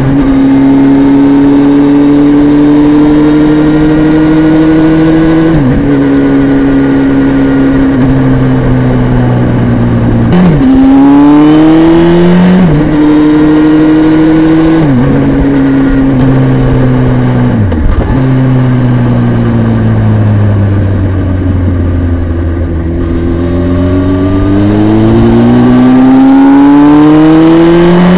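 Honda CBR929RR's inline-four engine running under way, heard from a microphone inside the bike's tail compartment. The engine pitch rises and falls with the throttle and drops abruptly about five times, then sits low and steady for a few seconds before climbing again near the end.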